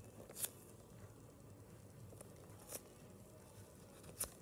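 Near silence, broken by three faint taps of handling: about half a second in, around the middle, and just before the end.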